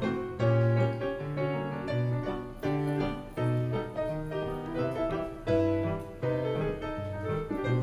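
Solo piano music of the kind used to accompany silent films, with a bass note changing about every half second under chords and a melody.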